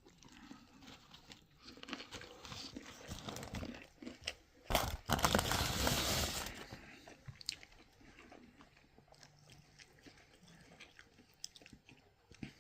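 A person biting into and chewing a wrap of hand-breaded fried chicken tender in a flour tortilla, close to the microphone, with crunching and chewing throughout. The loudest stretch, a burst of dense crunching, comes about five seconds in and lasts a couple of seconds; after it the chewing is quieter.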